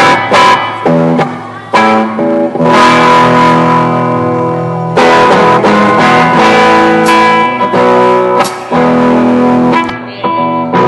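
Amplified electric guitar at a band sound check: short, choppy chords, then held chords that change every second or two and ring out and die away near the end.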